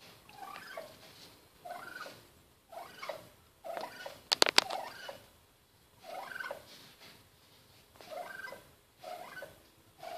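Male wild turkey making soft purring and clucking calls at its own reflection, in short phrases about once a second. About four seconds in there is a quick run of sharp taps, the loudest sound here.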